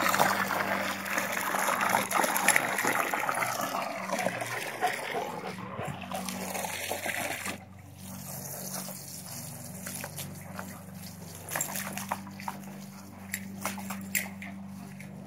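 Garden hose spray splashing onto grass and water, loudest in the first few seconds and then fading. About halfway it drops off suddenly to a quieter stretch with scattered light clicks and knocks.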